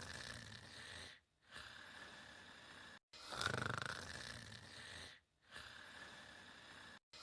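A person snoring in sleep: a louder snore breath followed by a quieter breath, repeating about every four seconds. Each cycle ends in a brief dead-silent gap, as if the recording is looped.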